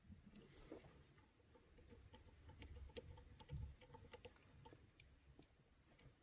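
Faint scattered clicks and light handling of small parts, as the pieces of an airsoft rifle's hop-up chamber are pushed into position.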